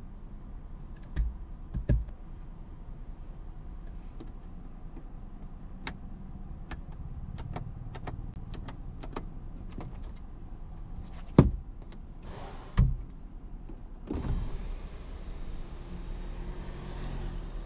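Scattered clicks and knocks inside a car's cabin, then a small electric motor in the car runs for about three seconds near the end.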